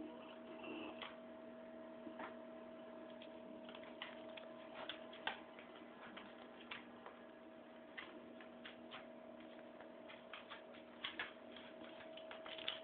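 Wheezy breathing heard as faint, irregular clicks and crackles, about one to three a second, over a steady low hum.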